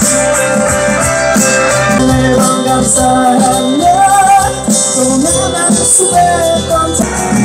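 Music with a singing voice over instruments.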